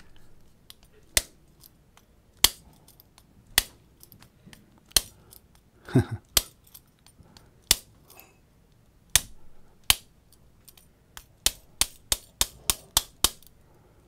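A small hammer taps a hand-filed bump key seated in a laminated steel padlock, making sharp single clicks about a second apart, then a quicker run of about three taps a second near the end. The bumping does not open the lock.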